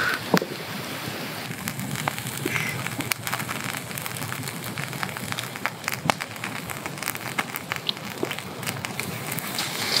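Open wood campfire crackling with irregular sharp pops, and seafood sizzling on the wire grill above it.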